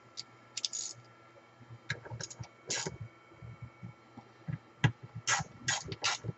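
Hand screwdriver work on a portable band saw's wheel cover: scattered clicks and short scrapes as a bit is fitted and a screw is turned in by hand, growing busier in the second half, over a faint steady hum.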